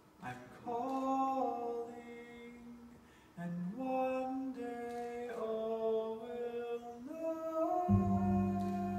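Several voices singing slow, held notes together in harmony, moving step by step between pitches. A deep low note comes in underneath near the end.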